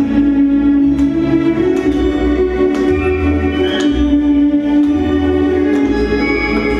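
Dance music: long sustained notes over a bass line that changes note about once a second.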